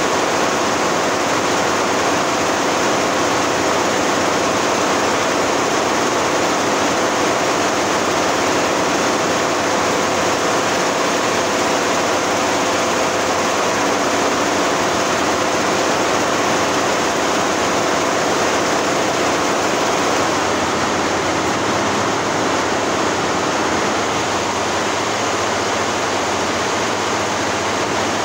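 Multi-head computerized embroidery machine running, its many needle heads stitching at once and blending into one loud, even noise with a faint steady hum. It drops slightly in level near the end.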